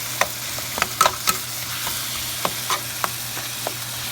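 Chopped chicken and gizzards frying in oil in a pan: a steady sizzle, with the irregular clicks and scrapes of a utensil stirring them, the loudest about a second in.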